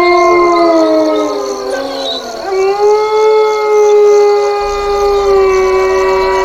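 Canines howling, several overlapping howls that glide in pitch, then one long howl that rises and holds steady to the end. A low hum comes in about two thirds of the way through.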